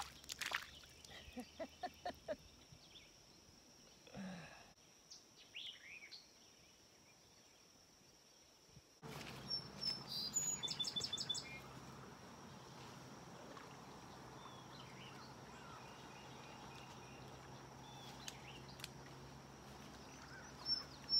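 Outdoor ambience: a few knocks and handling clicks in the first seconds, then, after an abrupt change about nine seconds in, a steady outdoor hiss with a songbird singing a quick run of high repeated notes around ten to eleven seconds in. A thin steady high-pitched tone runs underneath.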